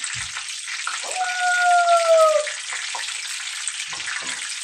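Egg rolls deep-frying in a skillet of hot oil, a steady sizzle. About a second in, a held tone sounds for roughly a second and a half, falling slightly in pitch, louder than the sizzle.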